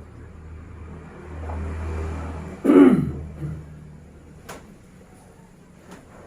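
A person gives one short, loud cough to clear the throat, about three seconds in.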